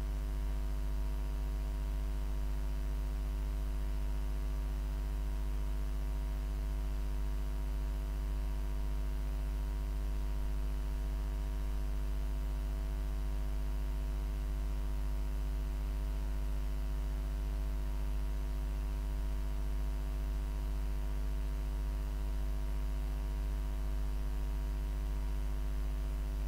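Steady electrical mains hum with a faint hiss, unchanging throughout: electrical noise picked up in the recording chain.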